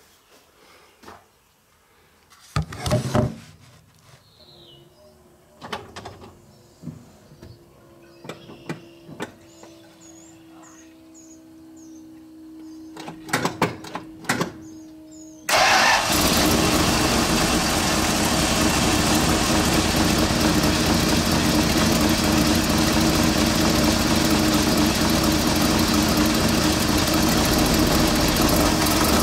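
A few knocks and clicks, then about halfway through the Dodge truck's 361 Chrysler big-block V8 starts suddenly on its freshly rebuilt Carter BBD two-barrel carburetor and runs steadily.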